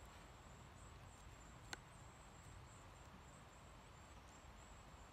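Near silence: a faint steady hiss with a thin high whine, broken by a single brief click a little before the middle.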